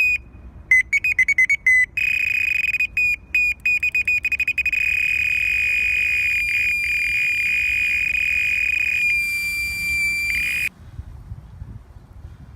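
Electronic carp bite alarm sounding a run as a carp takes line. Single beeps speed up within the first two seconds into a near-continuous high tone, which later dips slightly in pitch and then cuts off suddenly.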